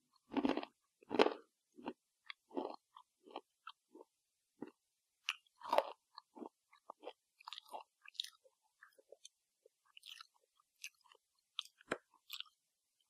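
A person chewing crisp baked banana chips with their mouth closed: a few loud crunches in the first second or two, then softer, sparser crackles as the chips break down.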